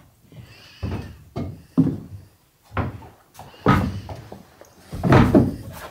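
Footsteps and knocks on the wooden companionway steps and cabin floor of a sailboat as someone climbs down inside: a string of irregular thumps, strongest near the end.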